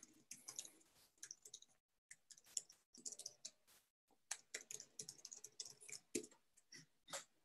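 Faint keystrokes on a computer keyboard as a command is typed, coming in irregular runs of quick clicks with short pauses between them.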